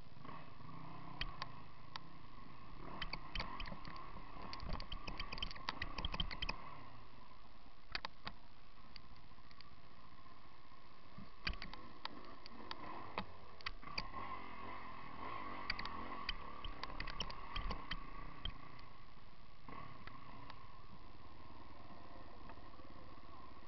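Enduro motorcycle engine running steadily at low revs, with bursts of knocks and rattles as the bike picks its way over rocks.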